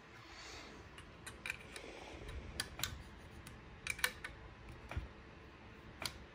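Faint, irregular metallic clicks and taps of brass on brass as a trumpet's second valve slide is handled and pushed back into the valve casing.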